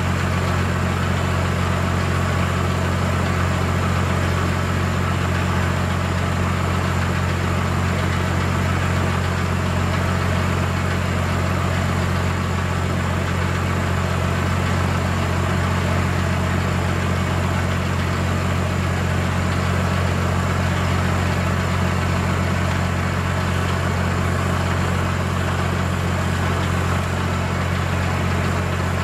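An engine idling steadily, a constant low hum that holds one pitch throughout.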